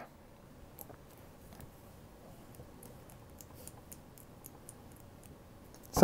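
Faint, irregular clicks of a small three-wheel combination lock's number wheel being rolled through its digits, stepping through the remaining combinations to find the code.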